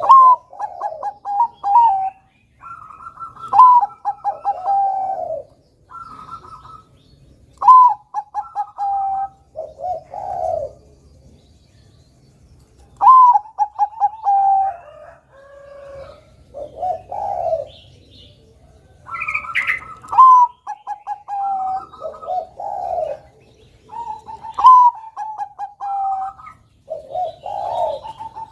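A Bangkok-type zebra dove (perkutut) singing its cooing song: phrase after phrase, each a clear falling coo followed by a quick stutter of short notes, repeated about every two to three seconds.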